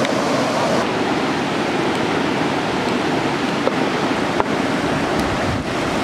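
River rapids rushing over rocks: a steady, even roar of whitewater.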